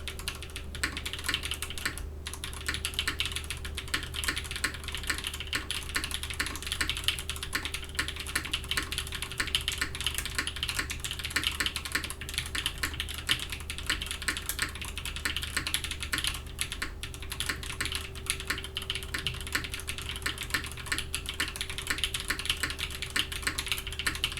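Continuous typing on a Krush65 custom mechanical keyboard, built top-mount with an aluminium plate and fitted with Kangaroo V2 switches: a steady, dense clatter of keystrokes.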